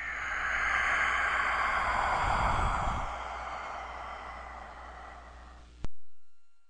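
Soundtrack sound effects: a long breathy hiss that swells and then slowly fades, with a low rumble about two seconds in. Near the end a sudden sharp strike, the loudest moment, leaves a ringing note that dies away.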